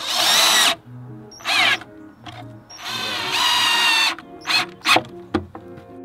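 Cordless drill driving pocket-hole screws into plywood in bursts. There is a burst at the start, a brief one about a second and a half in, and a longer run about three seconds in, then quick short pulses near the end.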